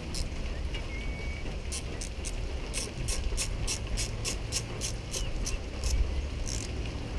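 Small socket ratchet clicking in a quick run of strokes, about three or four a second, while a fastener is being tightened down. A steady low rumble sits underneath.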